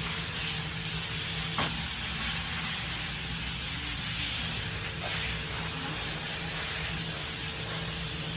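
A steady hiss that starts suddenly, with a low steady hum beneath it and a single faint tick about a second and a half in.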